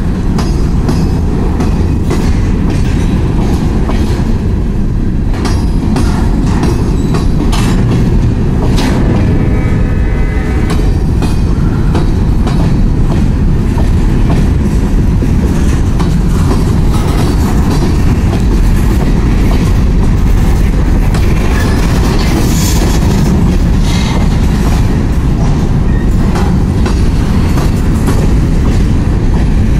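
Freight train of covered hopper cars rolling past at a grade crossing: a loud steady rumble with the wheels clicking over rail joints, and a brief wheel squeal about nine seconds in.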